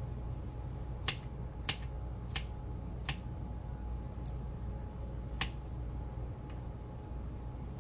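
Knife chopping garlic cloves on a cutting board: single sharp taps, six or seven spaced irregularly about a second apart, over a low steady hum.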